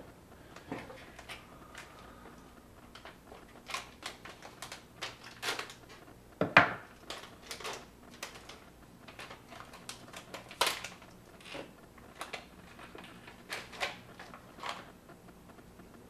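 Handling noises as a new laptop hard drive is taken out of its anti-static bag: scattered light clicks and crinkles, with one louder sharp snap about six and a half seconds in.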